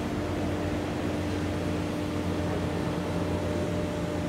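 Harbour boats' diesel engines running steadily: a low, even drone with a constant hum and no change in pitch.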